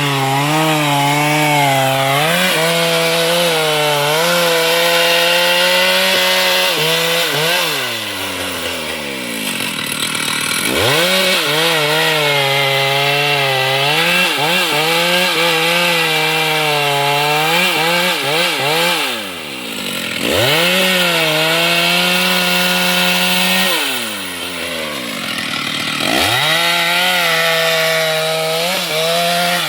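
Chainsaw running at high revs while cutting wood. It drops off toward idle several times, around 8, 10, 19 and 25 seconds in and again near the end, and revs straight back up each time.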